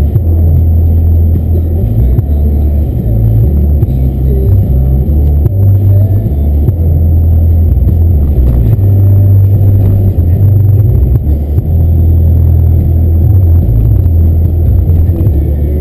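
Muffled low rumble of a car's engine and road noise while driving at town speed, swelling and easing unevenly.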